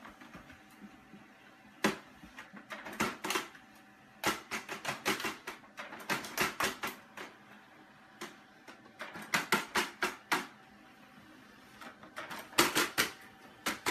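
Bursts of rapid clicking and clattering from a laser printer and a cat batting at it and its paper, in runs of several clicks a few times over, with a faint steady hum between the runs.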